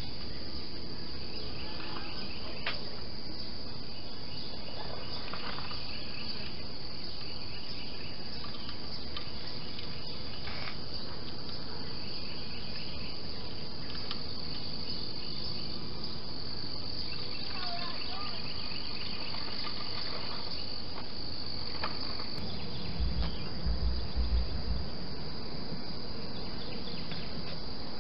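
Steady high-pitched insect drone, with scattered small bird chirps and a few low thumps a little over three-quarters through.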